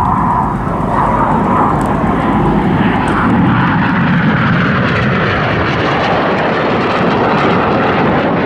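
Jet engines of the Red Arrows' BAE Hawk T1 display jets flying, a loud, steady jet noise.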